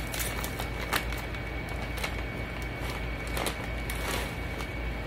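Rap Snacks potato chip bag crinkling and crackling in irregular bursts as it is handled and opened, over a steady low hum.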